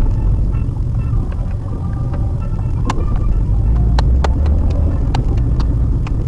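Steady low road and engine rumble heard inside a moving Maruti Suzuki WagonR, with scattered sharp clicks and knocks and a few brief short tones over it.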